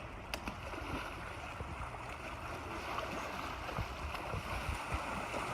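Steady wind and water noise from a boat under way, with a low rumble, and a single short click about a third of a second in.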